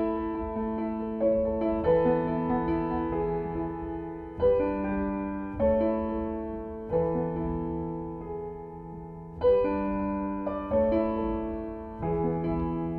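Slow, gentle background piano music, with a new chord struck every second or two and each one fading away before the next.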